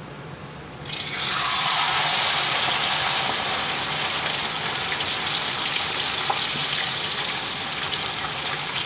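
Whole fish going into hot oil: the oil breaks into loud, dense sizzling about a second in, then keeps frying steadily, easing off slightly toward the end.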